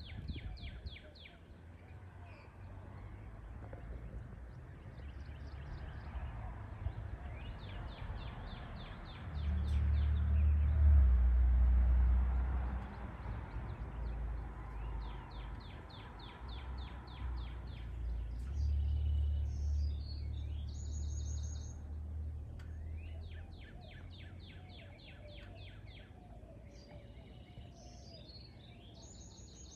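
Songbirds singing repeated rapid trilled phrases, over a low rumble that swells twice, loudest about ten seconds in.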